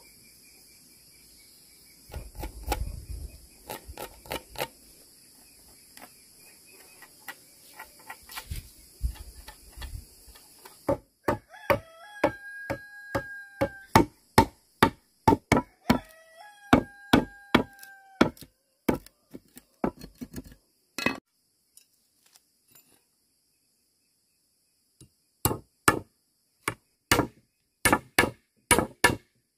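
Sharp, regular chopping blows, about two a second, from a blade cutting bamboo, in runs with a short pause. A rooster crows twice over the strikes, each crow about two seconds long. A steady high drone fills the first third.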